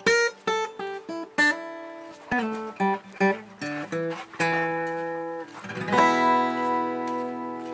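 Acoustic guitar music: single picked notes, then a chord struck about six seconds in that rings out and slowly fades.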